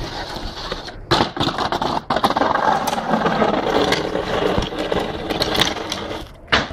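Cardboard mango boxes and wooden pallets being handled on concrete: a long stretch of scraping and rattling with a few sharp knocks, the loudest near the end.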